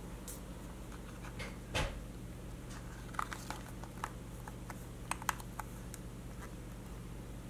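A cardboard LCD video card handled and opened by hand: one rustling sweep of the cover about two seconds in, then several light clicks and taps of fingers on the card, over a steady low hum.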